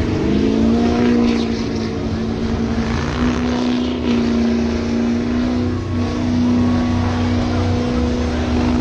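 White pickup truck's engine revving up in the first half-second, then held at high, steady revs while its rear tyres spin and smoke in a burnout.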